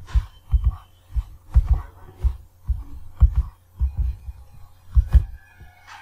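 Irregular dull low thumps, about two a second, with a few sharper clicks among them: a computer mouse being moved and clicked on a desk, picked up by the microphone.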